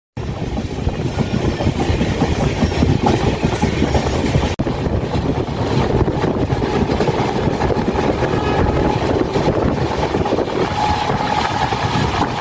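A train running on its track: a steady, loud rumble with wheels clattering over the rails, briefly cut out for a moment about four and a half seconds in.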